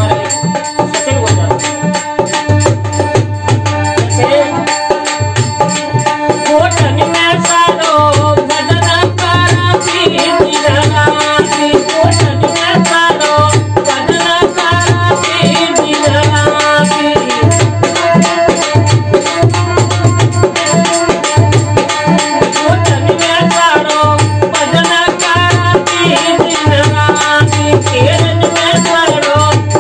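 Rajasthani folk bhajan music played on instruments: a harmonium plays the melody over a steady dholak beat, with a jingling rattle-like percussion on top.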